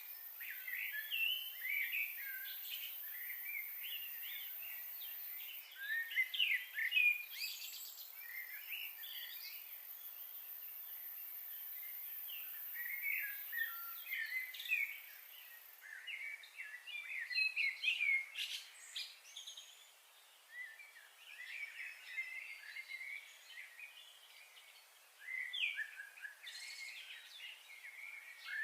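Small birds chirping, with many short overlapping calls throughout. A thin, steady high-pitched tone runs underneath and stops about sixteen seconds in.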